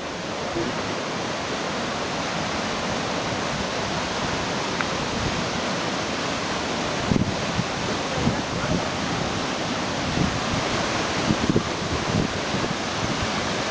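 Steady rushing of a rain-swollen waterfall and creek flow. From about halfway on, wind buffets the microphone in low gusts.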